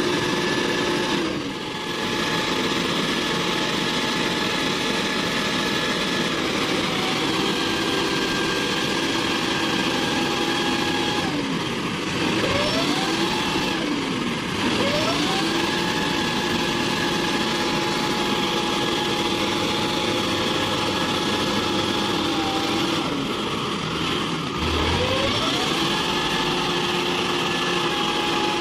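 Mitsubishi Fuso 220PS dump truck's diesel engine working hard under a heavy load on a slippery muddy climb. It holds a steady high pitch, and three times the revs sag and then climb back up.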